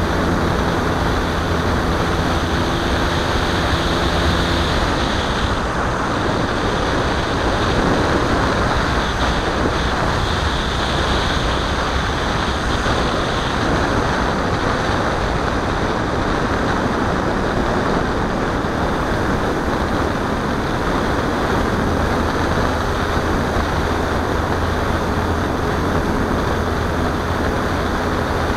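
Steady wind rush over the microphone of a camera riding on a flying radio-controlled model airplane, with a faint propeller hum that drops out about five seconds in and comes back faintly near the end.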